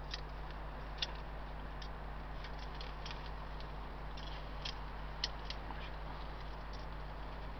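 Meat grilling over charcoal on a small mesh grill: irregular sharp crackles and pops, with two louder pops about a second in and about five seconds in, over a steady low hum.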